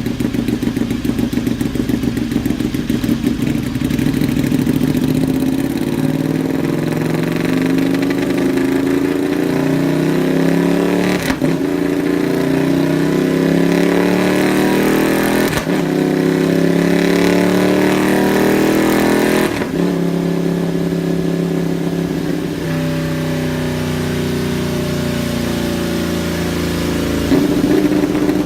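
Ducati L-twin motorcycle engine being revved, its pitch rising and falling with the throttle, in several clips joined one after another with sudden changes between them.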